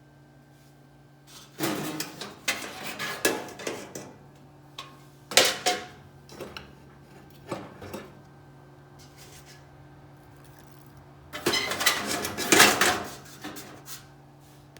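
Metal objects clattering and rattling in several bursts of handling, over a steady low hum.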